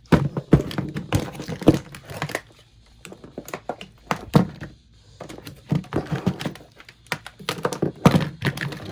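Handling noise: a dense, irregular run of knocks, thumps and rattles, as of objects being moved and bumped around, with a short lull about halfway through.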